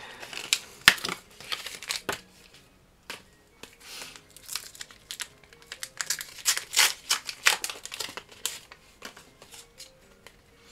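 Crinkling and tearing of the wrapper of a small McDonald's 25th Anniversary Pokémon card pack as it is torn open by hand, in a run of sharp crackles with a short lull about two seconds in.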